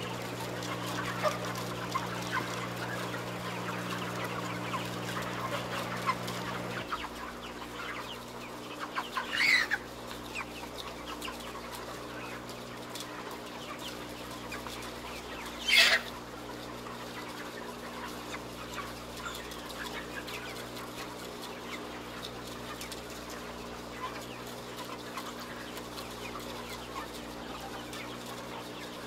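A flock of broiler chickens clucking and chirping, with two louder calls about nine and sixteen seconds in, over a steady low hum that shifts in pitch about seven seconds in.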